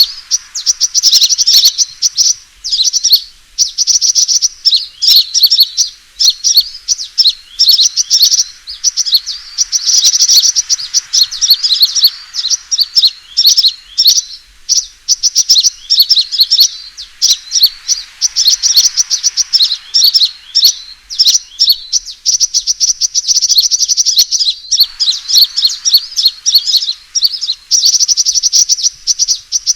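Sunbird fighting call, the kind played as a lure to draw in wild birds: rapid, high, sharp chirps and trills in long runs broken by brief pauses.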